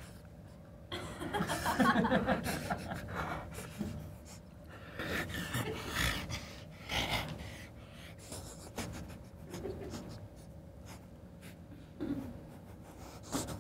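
A man panting and sniffing in short, irregular bouts.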